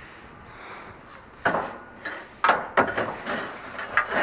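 Scrap steel being handled and loaded: a series of sharp knocks and clanks, starting about one and a half seconds in and coming several to a second.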